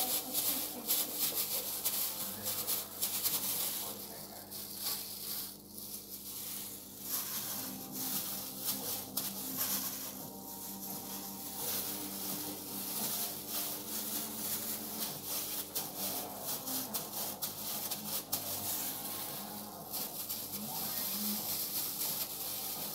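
Clear plastic food-prep gloves crinkling and rustling as raw meatball mixture is pressed and rolled by hand, over a steady hiss.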